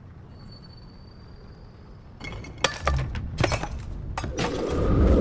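Glass shattering: a quick string of sharp cracks and crashes about two seconds in, then a low rumble that swells louder toward the end.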